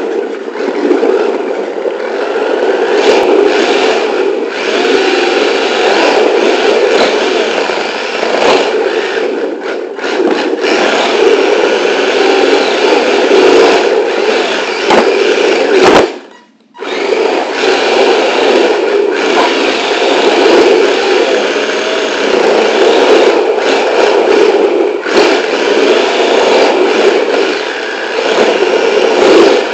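Electric drivetrain of a small RC drift car running, heard close up from a camera mounted on the car: a steady motor and gear whine, its pitch wavering with the throttle. It cuts out for about half a second around the middle, then picks up again.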